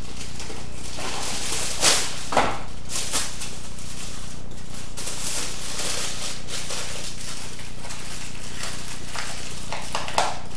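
Aluminium foil crinkling and rustling as a sheet is handled and scrunched around a foil armature, with a few sharper crackles about two seconds in.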